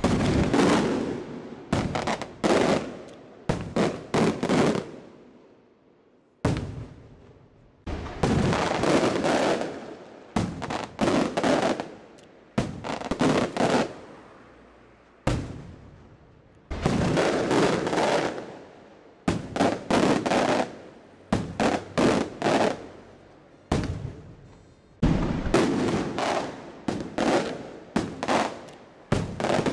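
Maltese festa aerial firework shells bursting: a long run of loud bangs, some single and some in quick clusters of three or four. Each bang rings away in a rolling echo before the next volley.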